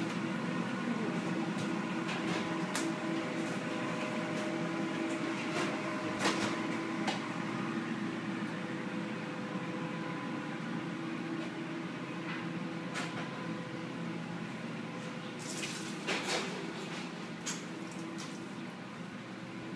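Steady hum of commercial kitchen equipment, with a few fixed tones over a noisy bed, and occasional short clicks and clatter, several close together about three-quarters of the way through.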